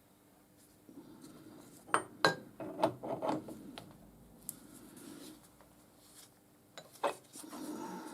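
A few sharp metallic clinks and knocks, as of tools or a workpiece being handled on a bench: a cluster about two seconds in and a single knock about seven seconds in.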